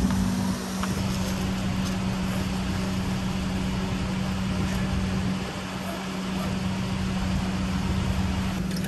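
A car travelling steadily: even road and engine noise with a constant low hum.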